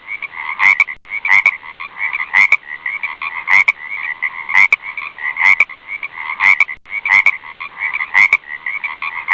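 A chorus of many frogs croaking continuously, with loud, sharp croaks standing out over the dense calling about once a second.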